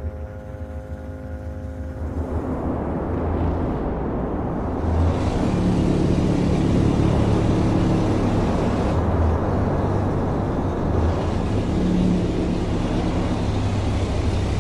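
A Jeep Wrangler SUV running and driving over rough, stony ground, a low engine rumble under a steady rushing noise. It comes in about two seconds in and grows louder around five seconds.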